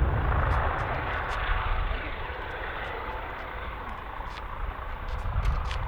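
Jet airliner engine noise fading away over the first couple of seconds, leaving a low rumble that swells again near the end.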